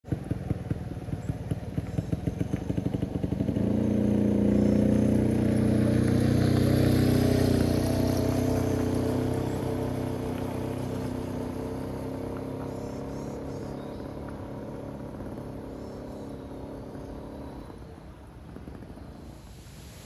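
Motorcycle engine idling with a quick, even beat, then pulling away about three and a half seconds in. It holds a steady engine note as it rides off down a gravel road and fades out gradually.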